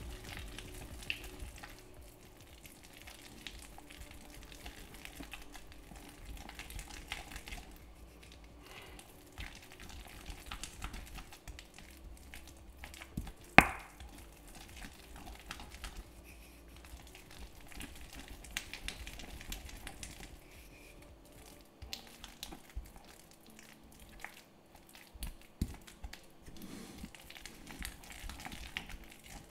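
Wooden pestle grinding and mashing basil pesto in a marble mortar: soft, wet crushing and scraping with small irregular clicks, and one sharp knock about halfway through.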